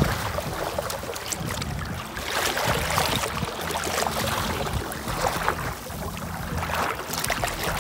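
Water rushing and splashing along the hull of a small Snark sailboat moving fast through choppy water, surging every second or two as waves break against the side.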